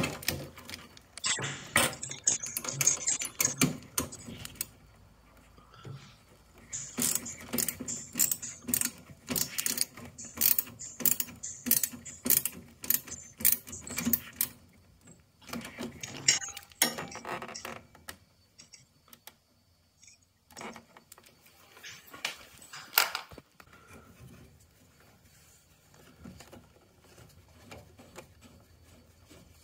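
Hand tools tightening the fixings of a combi boiler's new gas valve: metallic clicks and scraping, with a run of evenly spaced clicks about two a second for several seconds in the middle, then fainter handling noise.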